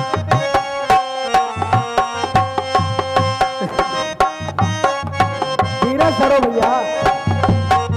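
Instrumental break in a devotional song: hand drums keep a steady rhythm under a melody instrument holding notes, with a brief sliding tone about six seconds in.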